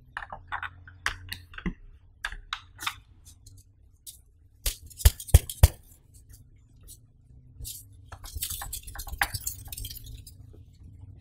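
Hands handling clear plastic unboxing packaging and a cloth pouch: light plastic clicks and taps, three sharp knocks about five seconds in, then the rustle of the fabric drawstring pouch being handled and opened near the end.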